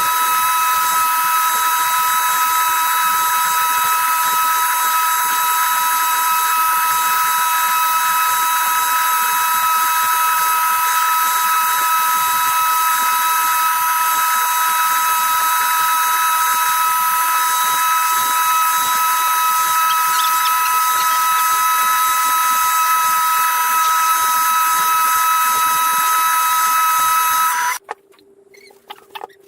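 Electric woodworking power tool running steadily at full speed with a high-pitched whine, cutting off suddenly near the end.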